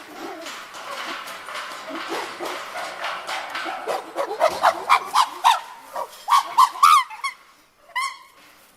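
Chimpanzees screaming and hooting together, building to a run of loud rhythmic screams about three a second that stop about seven seconds in, with one more cry shortly after.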